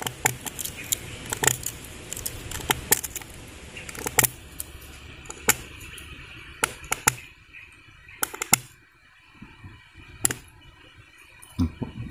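Whittling knife cutting into a thin buluh runcing bamboo stalk: a string of sharp, irregular clicks and cracks as the blade bites into the cane.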